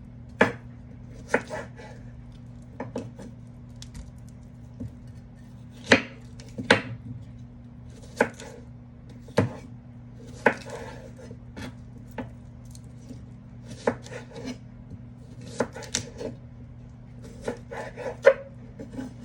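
Kitchen knife chopping on a cutting board: sharp, irregular knocks about a second apart, some in quick pairs.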